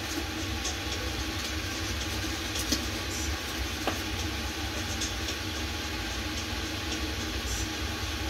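Steady low rumble and hiss in a small kitchen, with a couple of light clicks and knocks near the middle.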